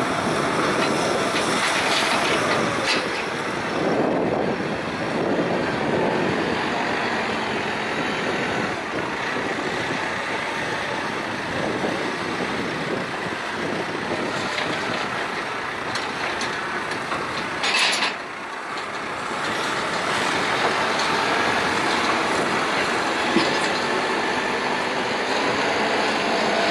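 Terex TLB890 backhoe loader's diesel engine running and revving up and down as it loads gravel, with a short hiss about eighteen seconds in.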